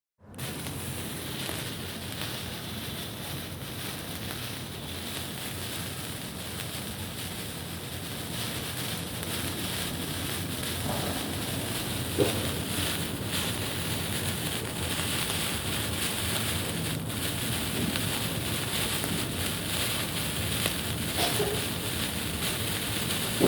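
A signal flare catching and burning with a steady fizzing hiss, with a few brief crackles and pops about halfway through and near the end.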